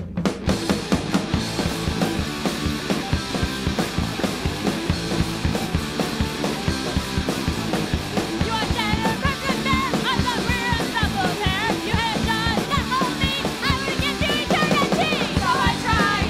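Punk rock song: the full band, drums, bass and guitar, comes in at the start right after a drum intro, and a voice starts singing about halfway through.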